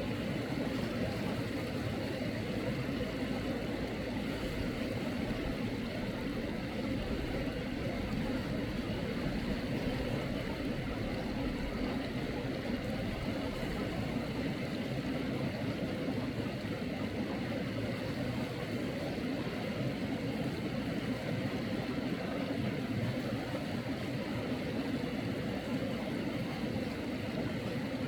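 Mountain stream water running, a steady rushing noise with no break.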